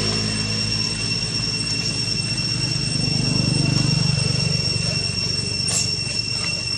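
A low motor hum swells about three to four seconds in and then fades, over a steady high-pitched whine. A short click comes near the end.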